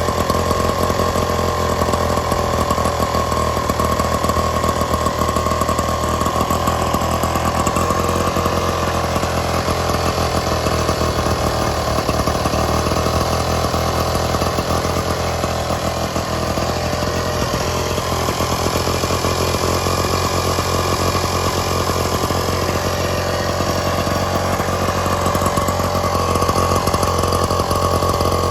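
Small 1970s Aspera two-stroke engine running steadily. Its note sags slightly in the middle, then picks back up near the end.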